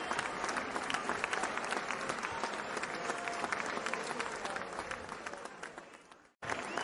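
Crowd applause, a dense patter of many hands clapping. It fades away from about five seconds in and cuts out briefly, then starts again abruptly just before the end.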